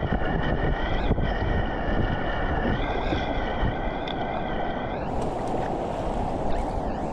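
Whitewater rushing around a sit-on-top kayak as it is paddled through a rapid, with wind buffeting the helmet camera's microphone. A steady higher tone rides over the rush until about five seconds in, when the sound turns hissier.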